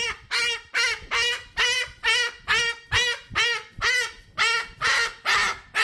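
Pet cockatoo screaming: a rapid series of harsh, loud calls, about two or three a second. It is a distress or contact tantrum, yelling after a companion who has gone into another room.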